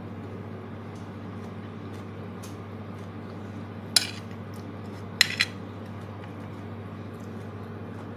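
A metal spoon clinks against a plate as rice is scooped: one sharp clink about four seconds in, then two quick clinks a second later. A steady low hum runs underneath.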